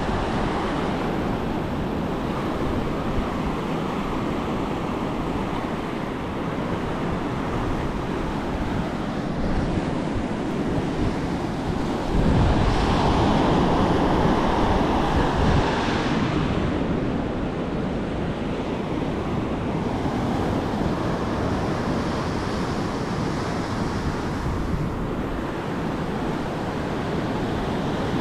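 Ocean surf breaking and washing up a sandy beach, with wind on the microphone. The rush swells louder for a few seconds about halfway through.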